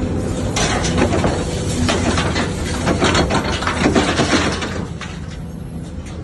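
Scrap metal released from a hydraulic scrap magnet clattering and clanging into a steel roll-off bin, many rapid impacts for about four seconds, then stopping. Under it the excavator's diesel engine runs steadily.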